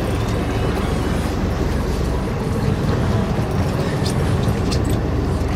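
Fishing boat's engine running steadily with a low rumble, under wind and sea noise, with a few faint clicks about four to five seconds in.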